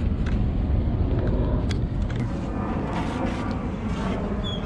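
Steady low rumble of wind buffeting the camera's microphone, with a few faint ticks.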